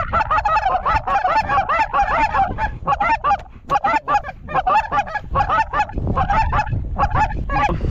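Goose calls blown in a fast, continuous string of loud honks and clucks, several overlapping, to bring in passing geese, with a brief lull about three and a half seconds in.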